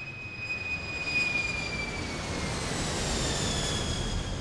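Recording of a jet airliner's landing or takeoff noise played over loudspeakers: a high engine whine with overtones that slowly falls in pitch while the rumble builds and grows louder. It stands for the baseline community noise of today's aircraft at an airport.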